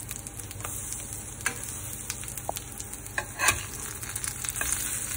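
Corn cakes sizzling steadily in hot olive oil in a frying pan, with a slotted spatula scraping and knocking against the pan several times as it slides under the cakes to lift them out, the loudest knock about three and a half seconds in.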